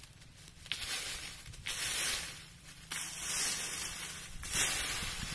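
Dry leaves and twigs rustling and scraping in bursts of about a second as brush is raked and the ground dug with a wooden stick.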